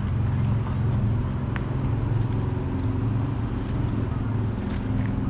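An engine running at a steady low idle, even in pitch.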